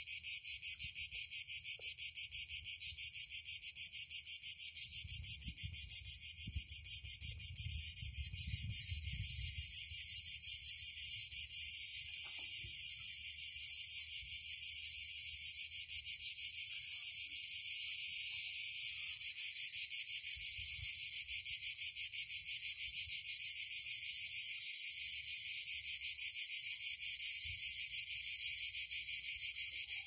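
Cicadas singing in a dense summer chorus: a steady, high-pitched rasping buzz made of very rapid pulses, rising slightly in level about two-thirds of the way through.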